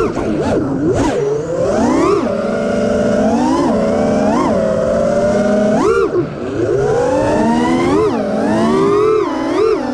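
FPV quadcopter's Emax RSII 2306 2400kv brushless motors spinning DalProp propellers, a loud buzzing whine made of several pitches at once. The pitch swoops up and down sharply many times as the throttle is punched and chopped.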